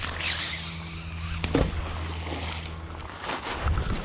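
A steady low motor hum that stops about three seconds in, with a couple of sharp clicks about halfway through.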